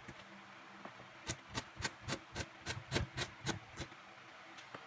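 Chef's knife chopping fresh ginger on a plastic cutting board: about ten quick knocks of the blade on the board, three or four a second, stopping about four seconds in.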